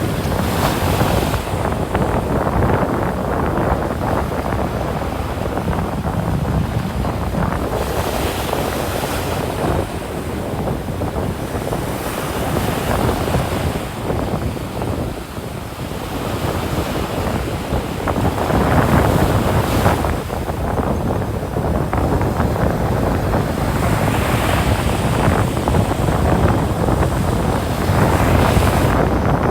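Ocean surf breaking on a sandy beach, with waves swelling and washing in every few seconds. Wind buffets the microphone, adding a low rumble.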